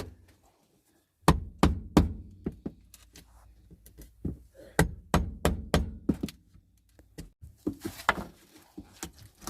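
Irregular series of sharp knocks, roughly two a second, starting about a second in: hammering on the van's rusted floor metal to break out a cut section.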